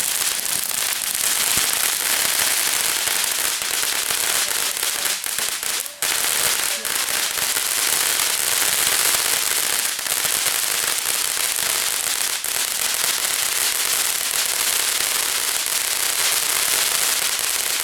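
Lit consumer firework burning with a steady, loud hiss and dense crackle, with a brief dip about six seconds in.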